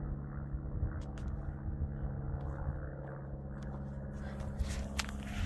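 A steady low engine hum, with a few light clicks over it.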